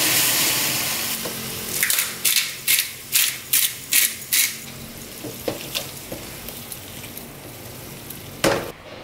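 Bean-sprout stir-fry sizzling in the pan, fading soon after the start, then about seven quick grinding strokes from a pepper mill, two or three a second. After that, a spatula softly stirring and tossing the noodles, with one louder knock near the end.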